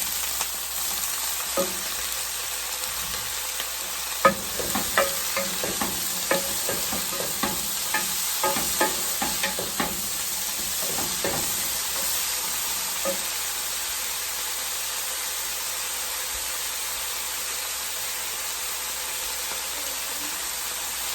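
Beef and vegetables sizzling in a hot pan as they are stir-fried, with a utensil clattering and scraping against the pan through the first half; then steady sizzling alone.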